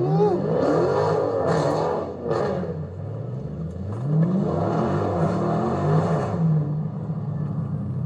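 Dodge Scat Pack's 6.4-litre Hemi V8 revving hard in two bursts, pitch climbing and falling: the first at the start, the second about four seconds in, with the engine droning between them.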